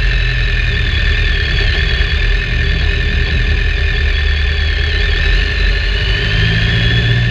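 BMW K1300R's inline-four engine running steadily at a low, even throttle while riding, with road and wind noise from the moving bike.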